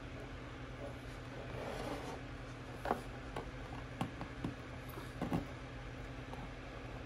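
A few sharp plastic clicks and knocks, about five between three and five and a half seconds in, from hands fitting a lamp socket and its cord into 3D-printed plastic panels, after a brief rustle of handling. A steady low hum runs underneath.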